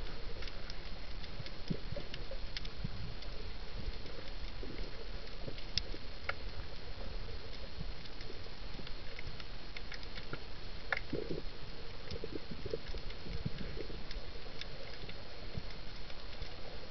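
Underwater reef ambience picked up by a camera underwater: scattered sharp clicks and crackles over a steady hiss, with occasional low thumps.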